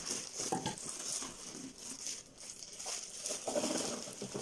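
Plastic bag around a portable keyboard crinkling and rustling irregularly as the keyboard is handled and lifted out of its box.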